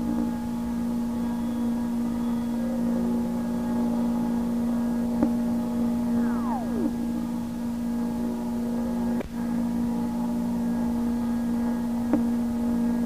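A steady low drone with many overtones, with a falling, whistle-like tone that glides down once about six seconds in and a few sharp clicks, the kind of eerie recording passed around as a mysterious 'strange sound' in the sky.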